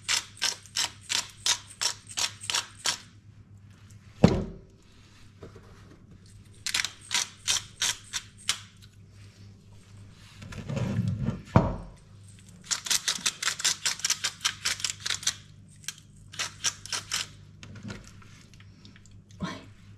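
Hand pepper mill grinding a four-pepper blend in several bursts of quick ratcheting clicks, about four or five a second, with pauses between. Two dull thumps cut in, one about four seconds in and a louder one near twelve seconds.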